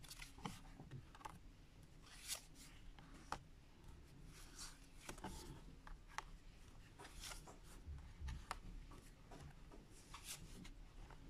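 Lenormand playing cards being drawn and laid out on a table: faint, scattered swishes and light taps as each card is slid into place.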